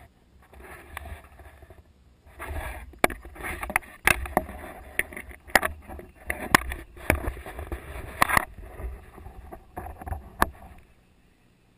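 Rustling and rubbing right at an action camera's microphone, with sharp clicks and knocks, from the camera being handled and brushing against clothing. It thins out and goes nearly quiet near the end.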